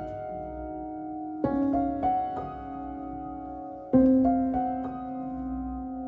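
Slow, calm solo piano music: a chord struck twice, each followed by a few more notes, all left to ring.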